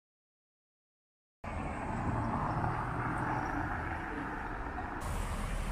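Complete silence for about the first second and a half, then a steady hum of city traffic.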